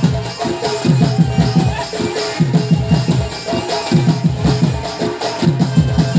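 Live folk dance music: a hand drum plays quick runs of strokes in a repeating pattern about every one and a half seconds, under a wavering melody and crisp shaker-like percussion.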